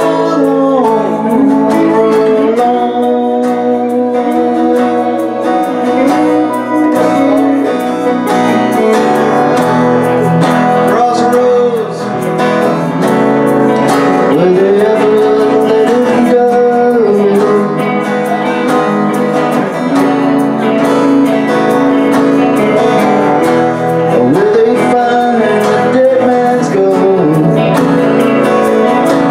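Live band playing a song: singing over strummed acoustic guitar and electric guitar.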